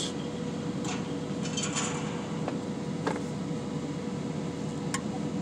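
Steady mechanical hum and fan noise inside a truck's cab, with a few faint clicks and rustles.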